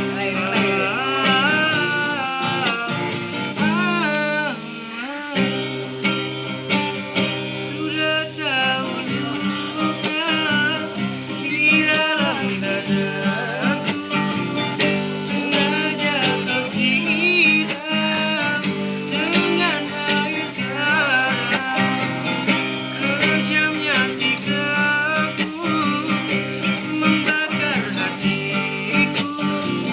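A voice singing a melody with vibrato, accompanied by acoustic guitar.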